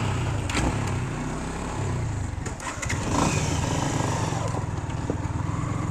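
Motorcycle engine running steadily, with a low even drone.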